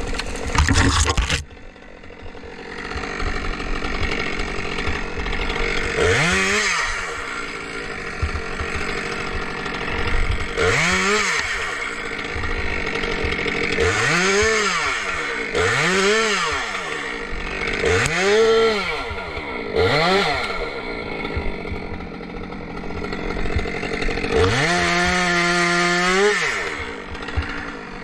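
Two-stroke chainsaw revving again and again, its pitch rising to full throttle and dropping back about seven times, then held high for about two seconds near the end. A short loud burst of noise comes in the first second or so.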